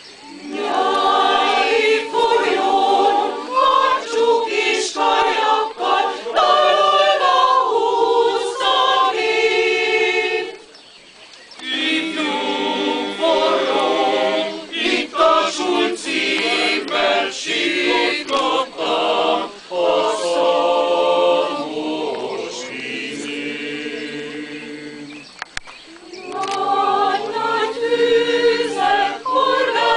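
Mixed choir of women's and men's voices singing, breaking off briefly about ten seconds in and then going on, softer for a few seconds past twenty seconds before swelling again.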